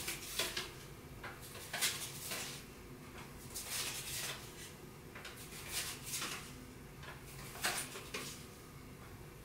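Playing cards rustling and scraping as they are handled between the fingers: short, irregular scratchy rustles, about a dozen over the stretch, over a faint steady room hum.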